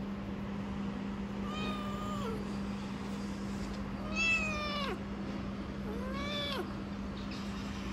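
A kitten meowing three times, about two seconds apart. The middle meow is the loudest, and each one drops in pitch at the end. A steady low hum runs underneath.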